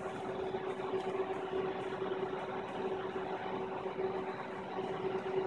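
Steady machine hum with a held mid-pitched tone over an even rushing noise, unchanging throughout.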